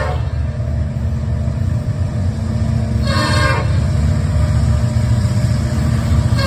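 CN diesel locomotive's air horn at a grade crossing: a long blast ends at the start, one short blast comes about three seconds in, and the next long blast begins at the end, over the steady low rumble of the approaching freight train.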